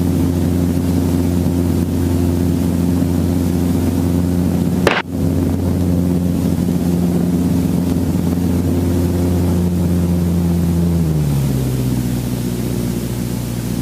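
Helicopter engine and rotor running steadily with a low, even drone; about eleven seconds in the pitch steps down as the rotor speed eases off.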